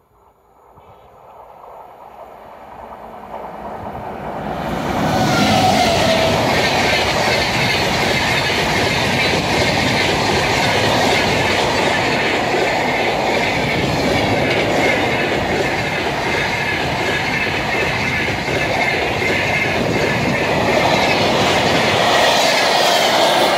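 Rajdhani Express hauled by a WAP-7 electric locomotive, approaching and passing close by. The sound swells over the first five seconds, then holds as a steady, loud rush of coach wheels running on the rails.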